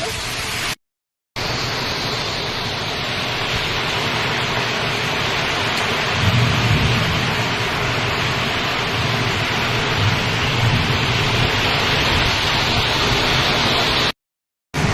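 Heavy storm rain pouring down in a dense, steady rush, with low rumbling swells partway through. The sound drops out completely for about half a second twice, once near the start and once near the end.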